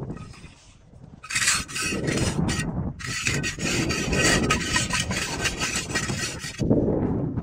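Harsh, rasping scrape of a tool on concrete block, starting about a second in and running for about five seconds with a brief break early on.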